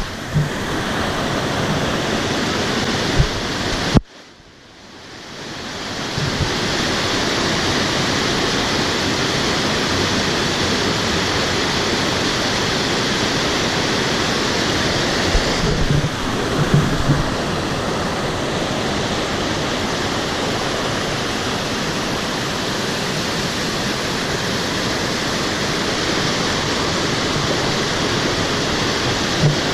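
Steady rushing of a waterfall's cascades, a dense, even roar of falling water. About four seconds in it drops away suddenly and swells back over a couple of seconds, and a few low knocks sound now and then.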